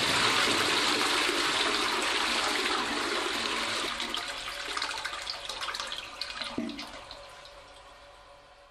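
Rushing water that starts as the music stops and fades out steadily over about eight seconds.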